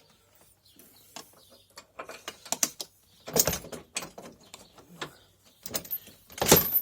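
Metal clicks and knocks of an adjustable steel tow bar being fitted to its mounting brackets, with two louder clunks about three and a half and six and a half seconds in.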